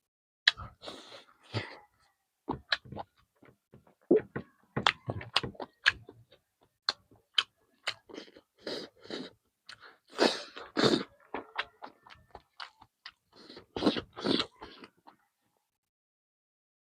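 A person chewing food close to the microphone, with irregular wet mouth clicks and smacks that stop about two seconds before the end.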